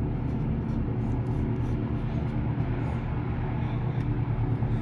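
Steady low machine hum, even and unchanging.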